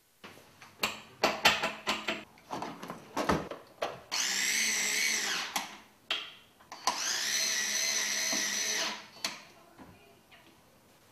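Cordless Li-ion mini screwdriver's motor running in two steady runs, about a second and a half and then two seconds long, with a steady whine, driving screws into a cabinet door. Before them comes a quick string of clicks and knocks.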